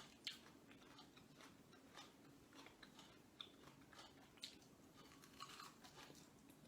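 Faint sounds of a person eating: scattered soft clicks and chewing.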